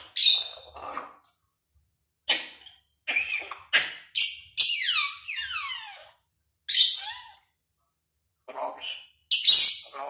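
African grey parrot calling in a series of short squawks, chirps and whistles, with gaps between them. About halfway through comes a cluster of falling whistles, and a loud squawk comes near the end.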